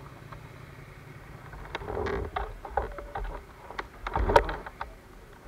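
Close-up knocks, clicks and rustling from the motorcycle and its bike-mounted camera being handled, starting about a second and a half in, with the loudest knock about four seconds in.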